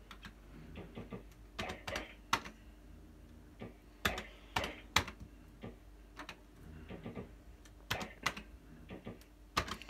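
QPS Yabba Dabba Dough fruit machine being played spin after spin: its mechanical reels spin and click to a stop in a scattered run of sharp clicks and clunks.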